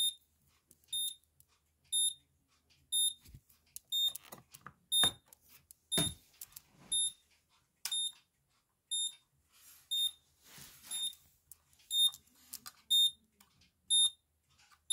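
Moose Z900 alarm keypad's piezo beeper giving a short high beep about once a second, steady and even, while the panel counts down its arming delay. Scattered clicks and handling noise fall between the beeps, mostly a few seconds in and again near the middle.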